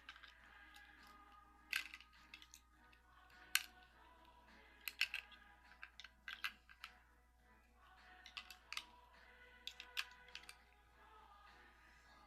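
Irregular small clicks and taps of plastic parts and batteries being handled while the batteries in a toy's battery compartment are changed.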